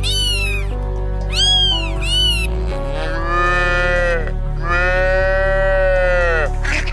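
A domestic cat meowing three times in short calls that rise and fall, then a cow mooing twice in long, drawn-out calls, over steady background music.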